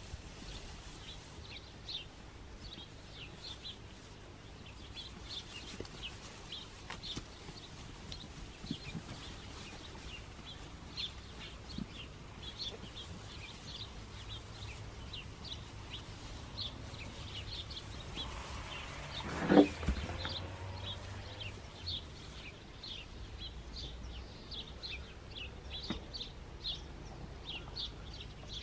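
Small birds chirping over and over in short, high notes. About twenty seconds in, a Skudde sheep gives a single bleat, the loudest sound.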